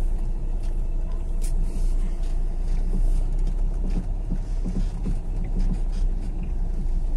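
Car interior noise while driving slowly over an unpaved lane: a steady low engine and road rumble, with a few short knocks near the middle.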